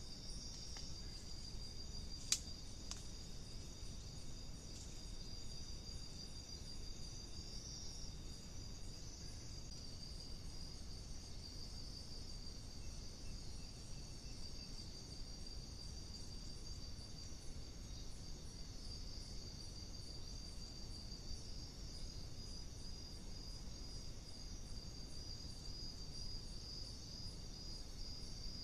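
Night insects, crickets, chirping steadily in a high shrill chorus. A single sharp click about two seconds in.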